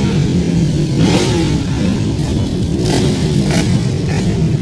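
A group of sport motorcycles riding past at low speed, their engines running continuously, with throttle surges about a second in and again around three seconds.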